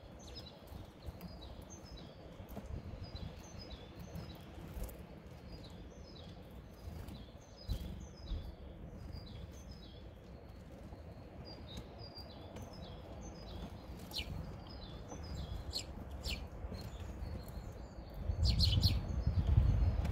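A small songbird repeats short, high chirping notes about twice a second. Scattered sharp clicks come in the second half, and dull, louder knocks sound near the end.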